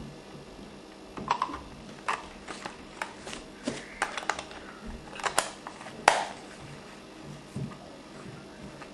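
Small plastic clicks and knocks from handling a Sanyo Xacti camcorder as its battery is fitted: an uneven run of a dozen or so sharp clicks over about five seconds, the loudest near the end.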